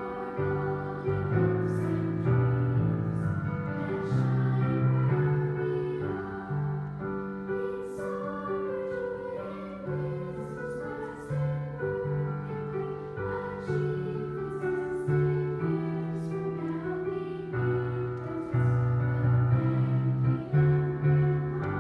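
Children's choir of girls singing a slow song with piano accompaniment.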